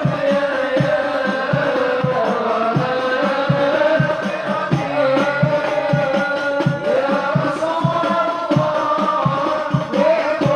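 A group singing sholawat, devotional Islamic praise songs, together, over hand drums beating a steady rhythm several strokes a second.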